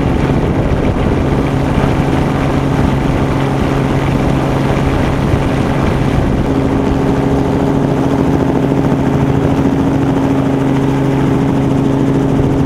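Engine running at a steady speed with a constant pitch, unchanged throughout; a higher tone joins about halfway through.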